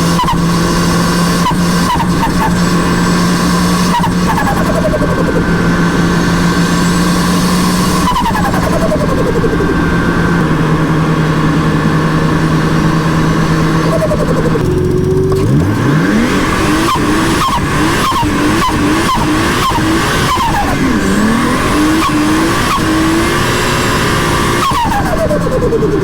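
Nissan Skyline R33 GTST's turbocharged RB25DET straight-six pulling hard on the street, with the revs falling after each shift or lift-off. On lift-off the Hypergear G3 turbo flutters in a rapid series of chirps.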